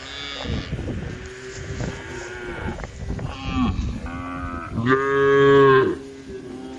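Several cows mooing, their calls overlapping; the loudest, a long moo, comes about five seconds in.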